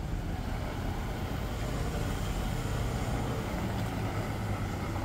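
An engine running steadily nearby: a low hum over the general noise of a street.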